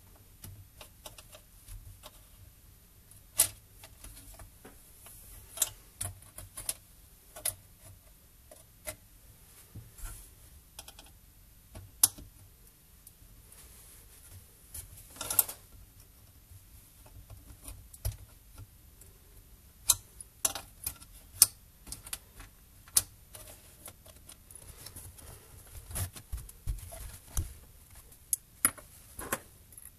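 Irregular sharp clicks and taps of plastic and small metal parts as an Acer Aspire V3-series laptop is taken apart by hand: cable connectors unplugged, the case handled, tools and parts set down, with a short scrape about halfway through.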